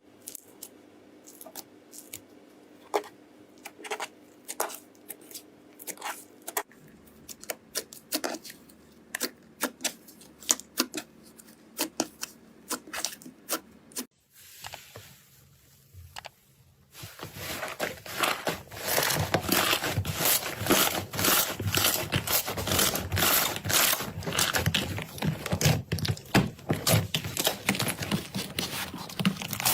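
Slime being squeezed and worked by hand: scattered sticky clicks and pops at first, then, after a short quieter gap about halfway through, a dense, louder run of crackling and popping.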